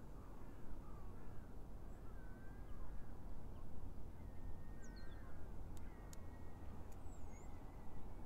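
Birds calling outdoors: a scatter of short, bending calls with a few higher chirps, over a steady low rumble. Two sharp clicks about six seconds in.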